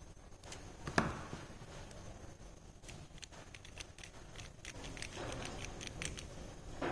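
Small metal gears and parts of a teaching-model differential being handled: a sharp click about a second in, then a quick run of light ticks and clicks.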